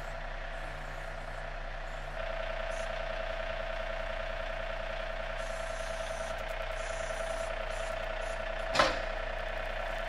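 John Deere 3E series compact tractor's diesel engine running with the backhoe hydraulics working as the stabilizer legs are raised: a steady hum with a whine that gets louder about two seconds in as the lever is worked. Near the end comes one sharp clunk.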